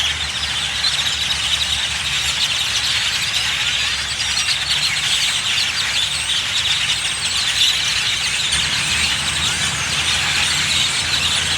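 A huge flock of birds calling all at once: a constant, dense din of squeaky, chattering calls with no pauses, over a low steady hum.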